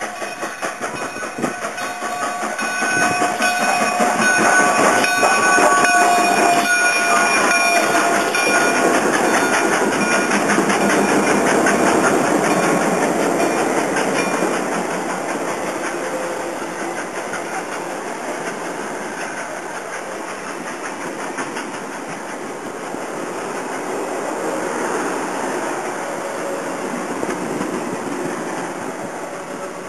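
CPR 2816, a 4-6-4 Hudson steam locomotive, passing close by as it pulls away, loudest during the first dozen seconds, with several steady high tones holding over that stretch. Then the diesel units and passenger cars roll by with a steady clickety-clack of wheels over the rail joints.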